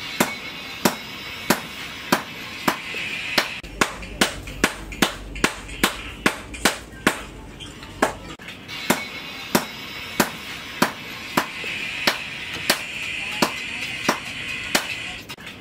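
Background music with a steady percussive beat, sharp hits a little under twice a second; from about four to eight seconds in the hits come faster, over a low bass.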